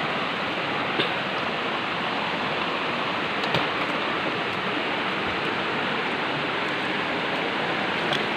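Steady rush of flowing water from a forest stream, an even, unbroken hiss.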